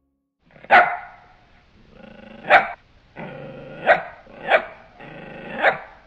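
A dog barking five times, sharp and loud, with a lower growl held between the barks.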